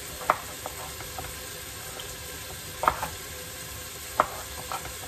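A kitchen knife cutting through small potatoes and knocking sharply on a wooden cutting board a few times, the strongest three spread out over the seconds, over a steady sizzle of beef browning in a pot.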